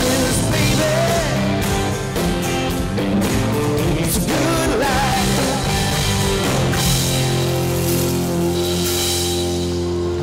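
Live country-rock band playing electric and acoustic guitars, bass and drum kit; about two-thirds of the way through the band settles onto one long held chord with cymbals washing over it, the ending of the song.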